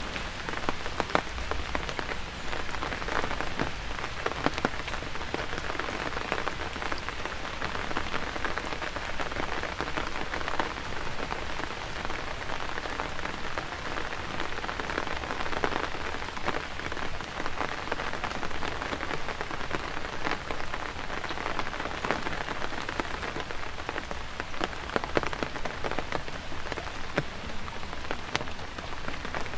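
Steady rain falling on wet pavement and foliage, with many individual drops ticking sharply close by.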